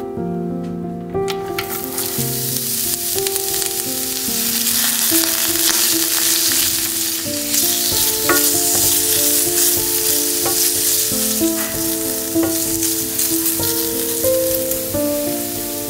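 Julienned carrot strips frying in olive oil in a skillet: a loud, steady sizzle starts about a second in as they hit the hot oil, while a wooden spatula stirs them. Soft background music with held notes plays underneath.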